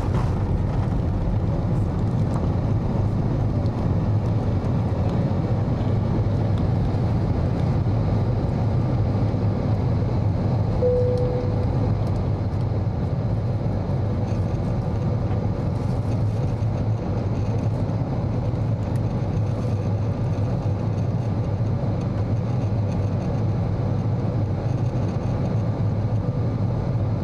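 Steady jet airliner noise, a dense low rumble with a rushing hiss, holding level throughout. A brief higher tone sounds about eleven seconds in, then a faint steady whine.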